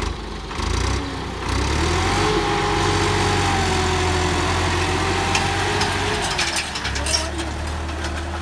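Swaraj 969 tractor's diesel engine revving up about a second in and then running steadily under load as it pulls a disc harrow through the soil, easing slightly near the end.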